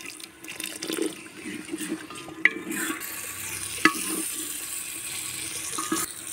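Wooden spoon stirring hot gravy in an aluminium pot, scraping and clacking against the metal, with two sharp knocks about two and a half and four seconds in. A steady hiss from the hot pot sets in about three seconds in.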